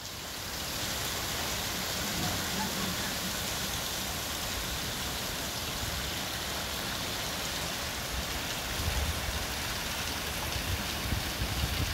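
Small hail falling steadily onto lawn and garden beds: a dense, even hiss that swells over about the first second and then holds.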